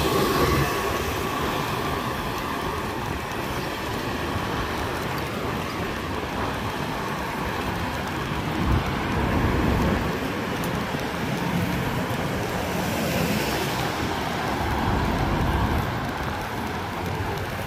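Steady road traffic noise with a low, uneven rumble underneath.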